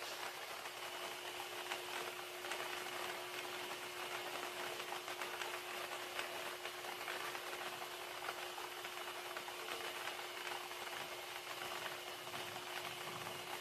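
Air-mix lottery draw machine running: its blower hums at one steady pitch while numbered plastic balls clatter and rattle against the clear chamber walls.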